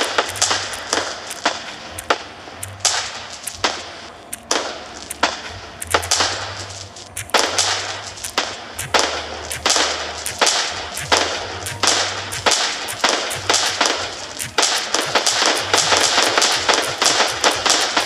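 Aerial fireworks bursting in rapid succession: many sharp bangs, several a second, with crackling between them, thickest in the last few seconds.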